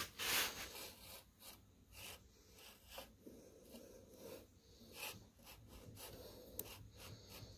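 Faint, irregular rubbing and scuffing strokes.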